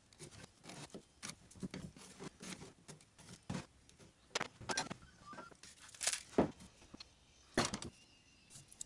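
Handling noises as a log blank is marked and mounted on a wood lathe: scattered clicks and rustles from a plastic centring template and pencil on the log's end, then a few louder knocks of wood against the lathe, the loudest about six and seven and a half seconds in. The lathe is not running.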